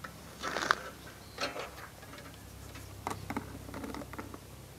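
Faint scattered clicks and rustles of multimeter test probes and leads being handled and set against battery terminal screws, over a low steady hum.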